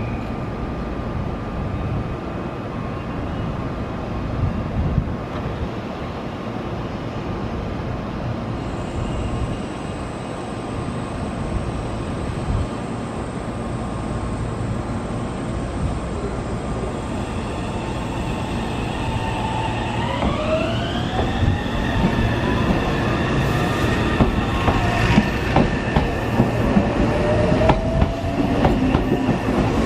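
Meitetsu 3300-series electric train departing from the platform. It stands running with a steady low hum. About two-thirds of the way in, its traction motors begin a whine that rises in pitch and levels off as it pulls away, with wheel clatter building near the end.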